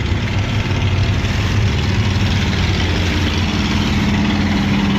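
Passenger launch's engine running steadily, heard on board as a low, even hum. A higher tone in the hum grows stronger about three seconds in.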